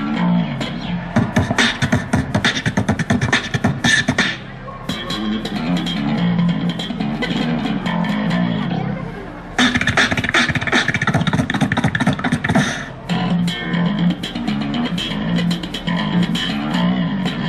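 Amplified beatboxing over a plucked electric bass guitar line, jamming together. The bass repeats a low riff throughout, while dense, rapid beatbox percussion comes in heavily for a few seconds near the start and again about halfway through.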